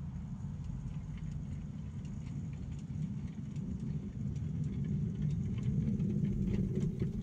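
7¼-inch gauge miniature train running along the track: a steady rumble of wheels on rails that grows louder in the second half, with scattered clicks.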